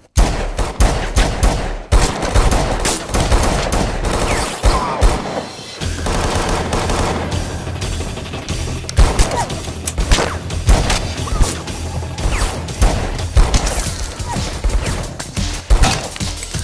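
Film-soundtrack gunfire: a sudden, dense run of rapid shots from several guns that continues without a break.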